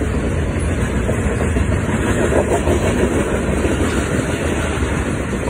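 Double-stack intermodal container train rolling past, a steady loud rumble of the freight cars with rapid clicking of wheels on the rails.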